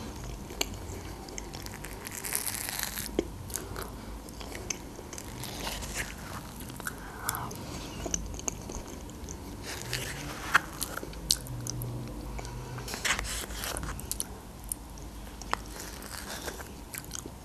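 Close-miked sounds of eating yogurt from a metal teaspoon: wet mouth sounds and swallowing, with scattered small clicks of the spoon against teeth and the plastic cup, and the spoon scraping inside the yogurt cup near the end.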